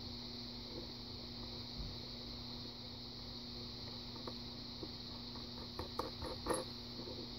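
Steady background hum, with a few faint, light metallic clicks in the second half as a thin metal tool works in the face of a brass lock cylinder's plug.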